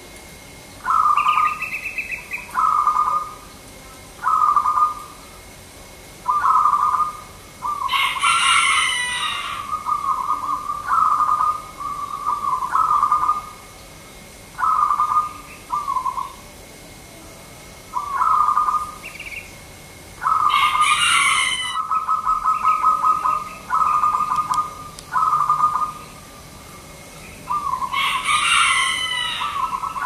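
Zebra dove (perkutut) cooing: a string of short, trilled coos, one every second or two. Three times, roughly ten seconds apart, a louder, harsher call cuts in over the cooing.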